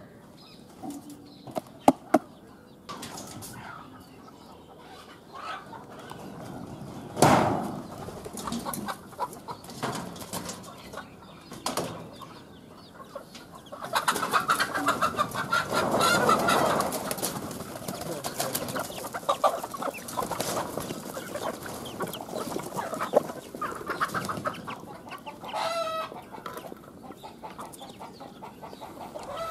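Chickens clucking and calling, with a dense burst of wing flapping from about halfway through that lasts several seconds. A couple of sharp clicks come about two seconds in and a single bang about seven seconds in.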